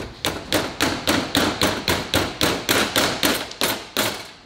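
A mallet tapping a new wheel seal into a Ford Super Duty rear wheel hub: a steady run of even taps, about four a second, worked around the seal's edge to seat it.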